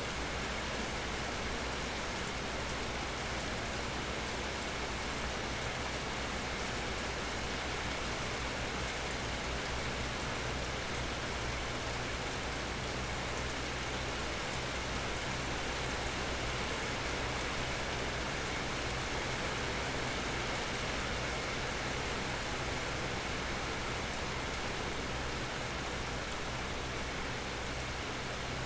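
Steady rain falling under an almond tree, pattering on the leaves, with an even hiss that does not change. A faint low hum runs underneath.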